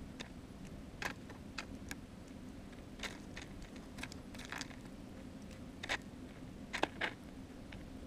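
Small birds pecking at scattered seed on snow right beside the camera: irregular sharp taps and clicks, the loudest cluster near the end.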